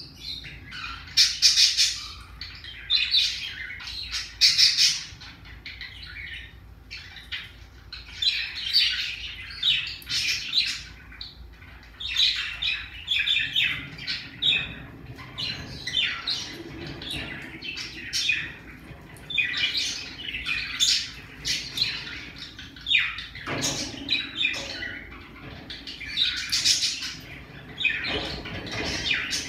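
Pacific parrotlet chirping and squawking: clusters of short, high, harsh calls that keep coming with only brief pauses.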